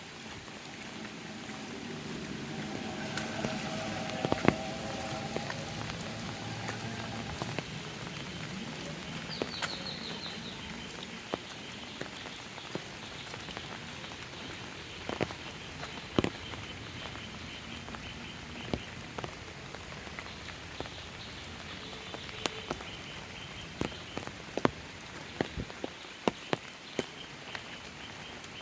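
Steady rain falling, with frequent sharp drops tapping close by. A low hum swells and fades over the first several seconds.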